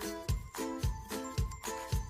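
Background music with a steady beat, a low drum about twice a second, and short chords between the beats.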